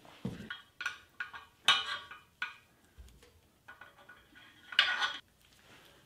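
Metal clinks and clanks as a spoked motorcycle wheel and its steel axle are handled and fitted into a wheel-truing stand, the loudest knocks about a second and a half in and near five seconds.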